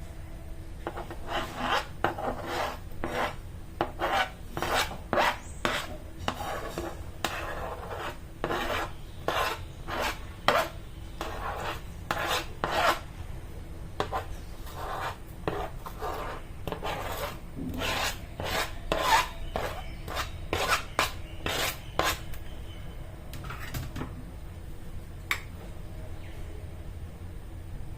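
Repeated scraping strokes of a utensil working food against a bowl, about one or two a second, as ingredients are mashed and mixed for guacamole. The strokes thin out and stop after about twenty seconds.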